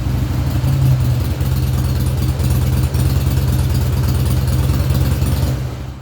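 Harley-Davidson Fat Boy V-twin idling steadily through an MCJ flap exhaust, loud and deep, then cutting off near the end.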